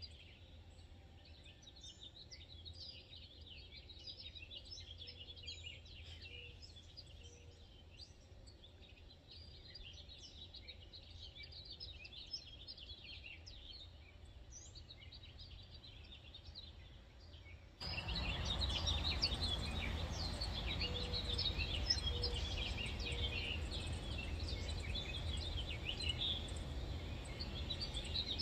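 Outdoor ambience of many small birds chirping continuously, short high chirps overlapping one another, over a low steady rumble. About two-thirds of the way in, the background suddenly becomes much louder with a broad rushing noise.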